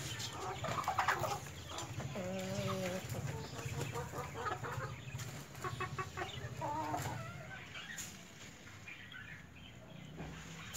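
White Leghorn chickens clucking, a string of short calls, some bending in pitch, which thin out and grow quieter near the end.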